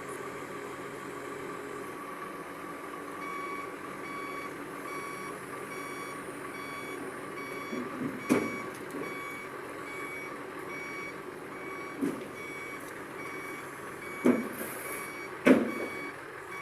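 Excavator's travel alarm beeping in a regular series over the steady running of its diesel engine, with several loud knocks in the second half.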